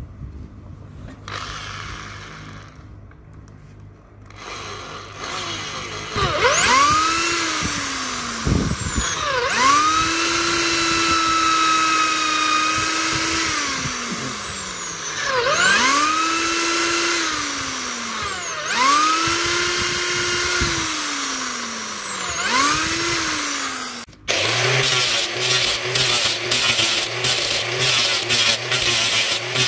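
An electric power tool's motor whine winds up, holds and slides back down five times over. About 24 seconds in, an angle grinder with a flap disc takes over, grinding the steel chisel with a rough, rattling sound over its motor hum.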